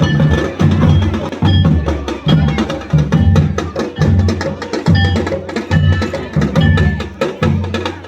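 Music with a steady, heavy drum beat, about two beats a second, and sharp clicking percussion over it.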